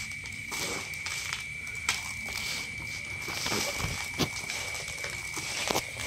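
A basin of small salted lòng tong fish (rasbora) being mixed by gloved hands: a wet, gritty rustling of fish and salt, with a few sharp clicks and knocks as the hands and fish hit the plastic basin. A steady high-pitched tone sounds throughout.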